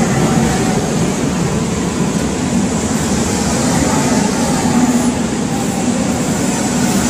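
Seoul Subway Line 4 electric train running, a steady, loud noise of the moving train with a low hum underneath.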